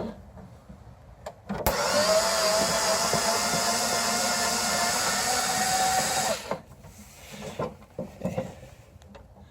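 Ryobi power driver running for about four and a half seconds as it backs a screw out of the snowblower's plastic cover, its motor pitch rising slightly before it stops suddenly. A few small clicks and knocks follow.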